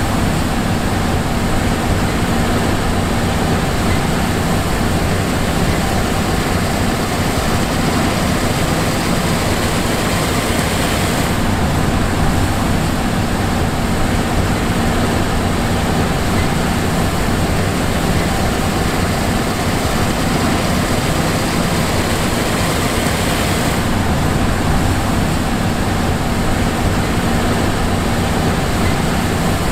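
John Deere S780 combine harvester running steadily: a continuous engine and machinery drone with a low hum and a constant hiss over it.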